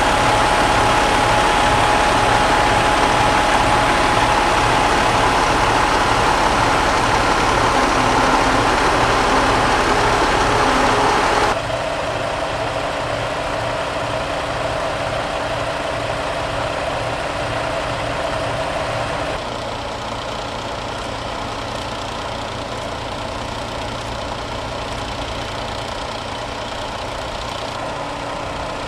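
Pierce fire engine's diesel engine idling steadily. The sound drops abruptly in level twice, about a third of the way in and again past the middle.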